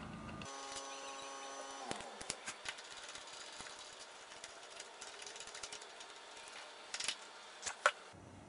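Light metallic clicks and ticks of a T-handle Allen wrench turning a bolt into a motorcycle handlebar riser plate. A quick run of clicks comes about two seconds in, then scattered ticks, then a few sharper clicks near the end, the last one the loudest.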